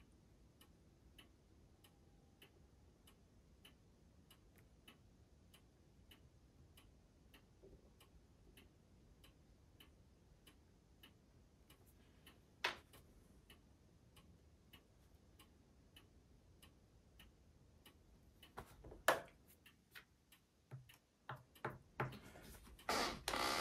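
Faint, steady, evenly spaced ticking, a little under two ticks a second, like a clock ticking in a quiet room. A single sharper click about halfway through, then light knocks and rustles near the end as a clear plastic sheet is handled on a cutting mat.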